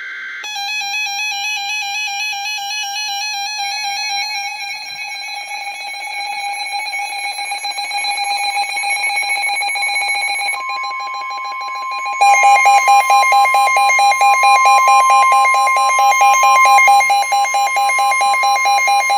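Emergency Alert System attention signal announcing a severe thunderstorm warning: a loud, steady electronic alarm tone. A second, higher steady tone joins about ten seconds in, and from about twelve seconds in the alarm gets louder and pulses rapidly.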